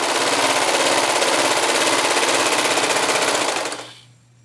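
Brother serger (overlocker) running at speed, stitching and trimming the edge of the towel fabric, then stopping shortly before the end.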